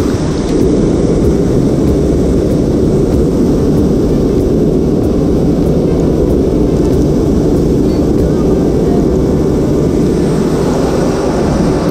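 Loud, steady low rumble of vehicle noise, with no breaks or distinct hits.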